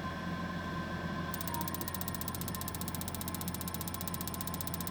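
Tankless water heater's spark igniter clicking rapidly and evenly, the ticks starting about a second in over a steady low hum, while the burner fails to light: the owner reckons it isn't getting gas.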